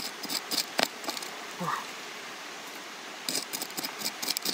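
Small hand pick digging into loose, dry soil: short gritty strikes and scrapes, in a quick cluster in the first second and again from about three seconds in.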